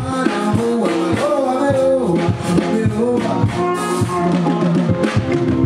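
A band playing with a voice singing over drum kit and other instruments, loud and continuous.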